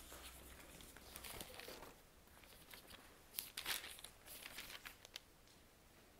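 Faint rustling of paper, a few short crinkles, strongest near the middle, as Bible pages are leafed through to find a passage.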